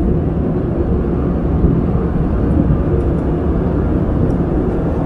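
Airbus A320 cabin noise in cruise: a steady low rushing hum of engine and airflow heard from a passenger seat, with a few faint light ticks.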